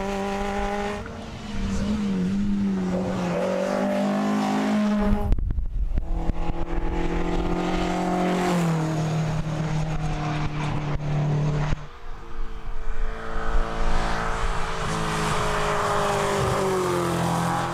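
Racing car engines at full throttle on a hill-climb run, the engine note rising and falling as the cars accelerate and pass. There are three separate cars: the sound cuts abruptly to a new one about five seconds in and again about twelve seconds in.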